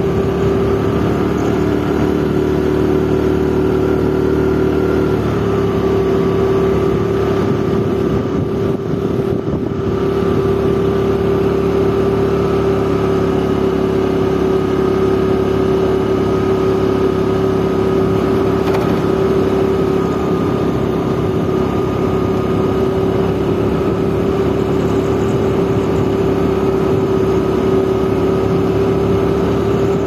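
Motorcycle engine running steadily at cruising speed, over wind and road noise. Its pitch drops a little about five seconds in, and the sound eases briefly around nine seconds before settling again.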